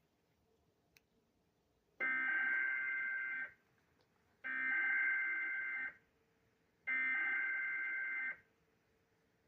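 Emergency Alert System SAME header from NOAA Weather Radio: three identical screeching digital data bursts, each about a second and a half long, about a second apart. They encode the opening of a new severe thunderstorm warning alert.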